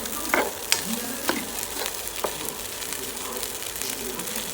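Fried rice sizzling in a hot pan, with a spatula scraping and clicking against the pan as the rice is stirred.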